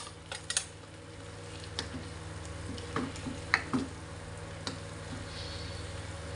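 A cooking ladle and spatula knocking and scraping against a non-stick pan as chicken feet are stirred in sauce: a few scattered light clicks and knocks. A steady low hum runs underneath.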